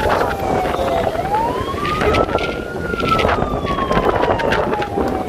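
A siren wailing slowly, its pitch falling, then rising to a peak about halfway through, then falling again. It sounds over a steady rush of storm wind on the microphone.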